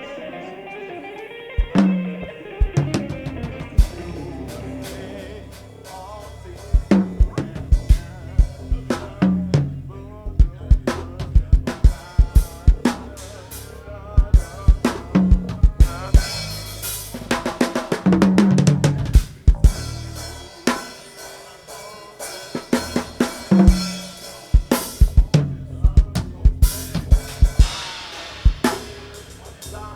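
Live band playing in rehearsal, with the drum kit to the fore: kick drum, snare hits and cymbals over bass and sustained chords. The drumming comes in about two seconds in.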